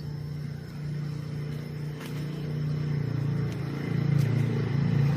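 An engine running steadily, a low hum that grows louder over the second half.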